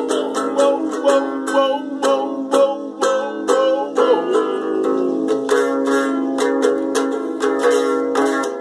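Ukulele strummed in steady, even chords, with a man's voice singing along wordlessly over the first few seconds.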